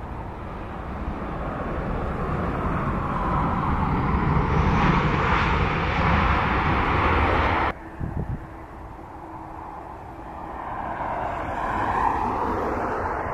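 Jet engines of an Airbus A320-family airliner landing, growing louder through touchdown and rollout, then cut off abruptly about eight seconds in. A quieter jet sound then builds again as a four-engine Boeing 747 comes in to land.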